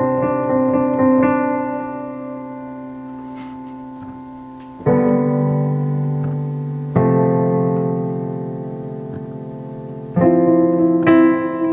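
Piano music: sustained chords that fade away between changes, with a new chord struck about five and again about seven seconds in, then quicker notes near the end.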